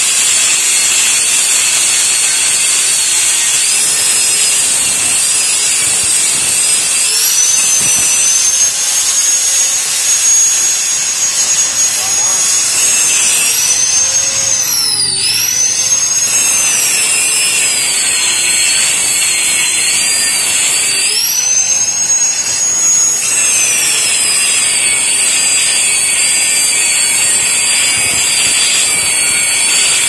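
Handheld electric angle grinder cutting into the steel shell of a hermetic refrigerator compressor: a loud, steady high-pitched whine with grinding hiss. The motor's pitch dips sharply and recovers twice, about halfway through and again a few seconds later, as the disc bogs under load.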